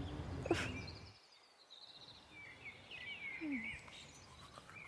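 Quiet outdoor ambience with faint, high bird chirps scattered through it; a low background hum cuts out about a second in.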